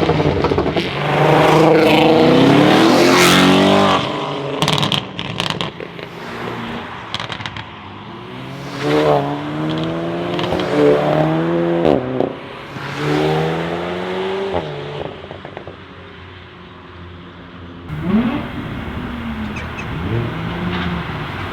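Volkswagen Golf 8R's turbocharged four-cylinder accelerating hard, then popping and crackling through the exhaust as the throttle closes. It pulls away through a run of quick upshifts, each a rising note cut short, and revs up once more near the end.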